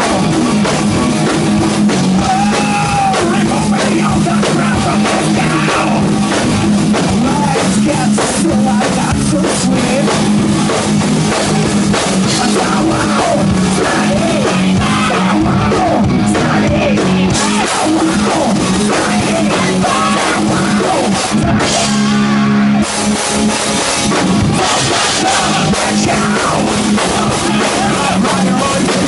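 Hard rock band playing live at full volume: drum kit, electric guitar, bass guitar and lead vocals. About three-quarters of the way through the band breaks for about a second, leaving a single held low note, then comes back in.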